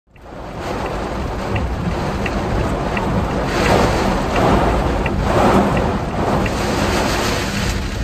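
Heavy rain drumming on the roof of a Suzuki Jimny JB64, heard inside the cabin while driving, mixed with steady road and wind noise; the noise swells twice in the middle. Faint light ticks recur about every 0.7 s.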